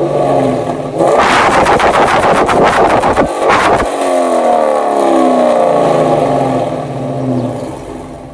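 2012 Dodge Charger R/T's 5.7-litre Hemi V8 through Kooks headers and a Corsa cat-back exhaust, revving hard in a loud burst about a second in, then running with its pitch rising and falling before fading out near the end.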